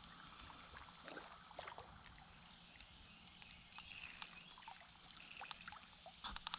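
Faint water sloshing and small splashes from a hooked fish being played in a shallow creek, with scattered light clicks, a quick cluster of them near the end. A steady high whine sits underneath.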